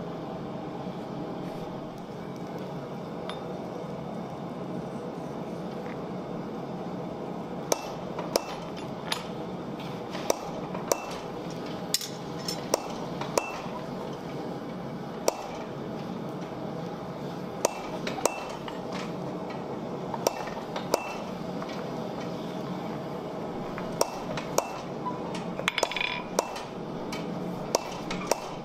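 Hand hammer striking a small piece of iron on a blacksmith's anvil: single sharp metallic clinks at irregular intervals, starting about a quarter of the way in and coming every second or so, a few in quick succession near the end. A steady low hum runs underneath.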